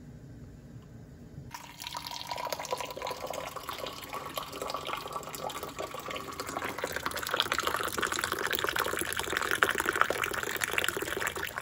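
Hot Moroccan mint tea poured from a teapot into a glass mug, a steady splashing pour that starts about a second and a half in and rises in pitch as the glass fills. It stops suddenly at the end.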